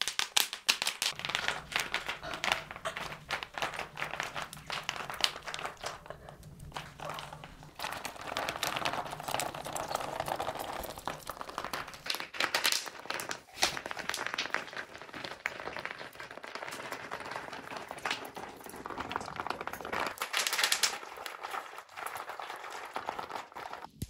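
Paint-filled bubble wrap being flattened with a rolling pin, its bubbles bursting in a dense, irregular run of pops and crackles.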